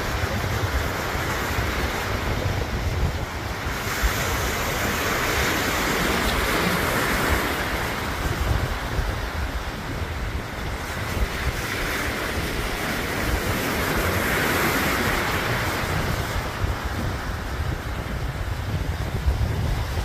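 Ocean surf breaking and washing up a sandy beach: a continuous hiss that swells twice as waves come in. Wind rumbles on the microphone underneath.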